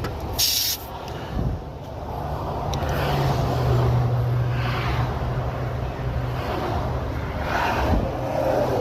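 Highway traffic passing close by, vehicles rushing past one after another with a low engine hum that swells and fades. A short sharp hiss sounds about half a second in.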